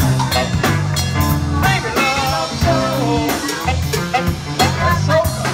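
Live soul band playing at full tilt: a steady drum kit beat, an electric bass line and electric guitar, with a melody line gliding over the top.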